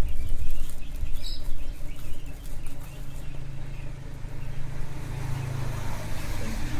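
Plastic parcel wrapping and packing tape being torn open by hand, rustling and crackling, over the low hum of a motor vehicle engine that grows louder about five seconds in.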